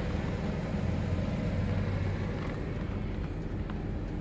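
Mercedes-Benz GLE 43 AMG's twin-turbo V6 idling, heard from inside the rear cabin as a steady low hum.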